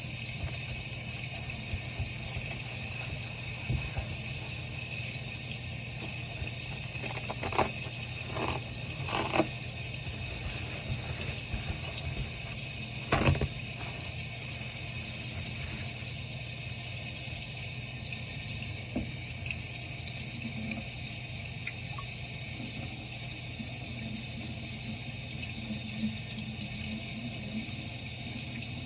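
Sink faucet running steadily, left on so the water warms up. A few light knocks sound over it about eight, nine and thirteen seconds in.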